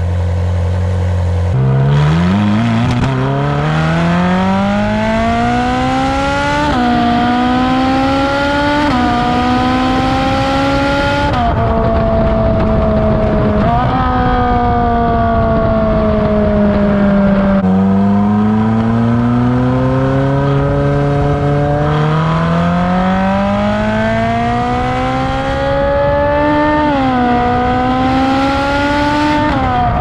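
Ferrari 458 Spider's 4.5-litre naturally aspirated V8, heard at the exhaust tips: a brief steady idle, then the engine pulling up through the revs with a sudden drop in pitch at each gear change. Partway through the revs ease off and fall, then climb again in one long pull.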